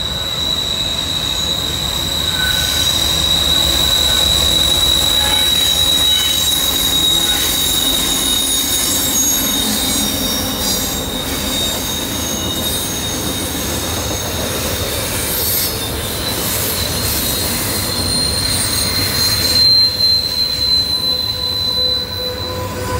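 Freight train rolling through a tight curve, its wheel flanges squealing against the rail in a steady high-pitched tone over the low rumble of the cars. The squeal dies away near the end.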